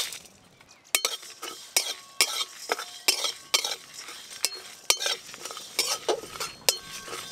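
Flat metal spatula scraping and knocking in an aluminium kadai, stirring whole spices (coriander, cumin, fennel seeds, dried red chillies) as they dry-roast for a spice mix. Irregular strokes, about one or two a second, beginning about a second in.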